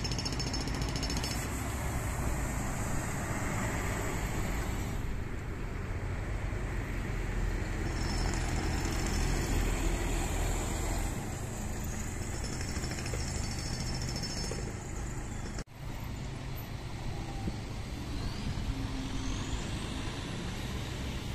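City buses running through a roundabout. One pulls away and a second approaches, with engine and tyre noise and passing traffic, and an abrupt cut about 15 seconds in.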